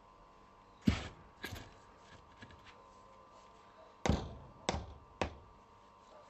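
Five heavy knocks in two groups: two blows about a second in, then three more in quick succession from about four seconds in.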